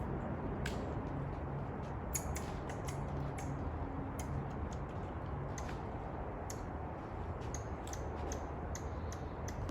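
A squirrel gnawing and cracking its food: irregular sharp clicks, several a second at times, over a steady low hum.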